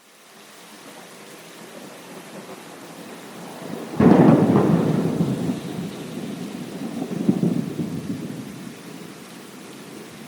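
Thunderstorm: steady rain fading in, then a sudden close thunderclap about four seconds in that rolls into a long rumble, with a second swell of rumbling a few seconds later before it dies back to the rain.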